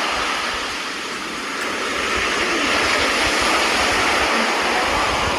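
Sea waves washing onto a shore: a steady rush of surf that eases slightly about a second in and swells again.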